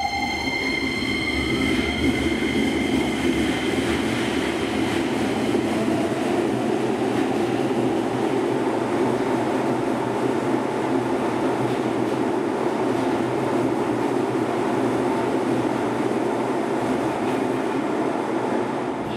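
Keisei electric train pulling out: the motor whine rises in pitch over the first two seconds as it accelerates, over a steady rumble of wheels on rail that continues to the end.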